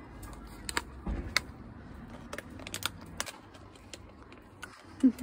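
Scattered light clicks and crackles at irregular intervals, typical of a plastic clamshell food container being handled and opened.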